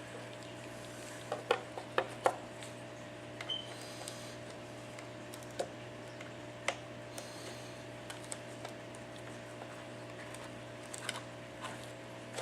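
Scattered small clicks and taps from handling iPad parts on the work surface: a quick cluster of three or four near the start, then single clicks every second or two. A steady low hum runs underneath.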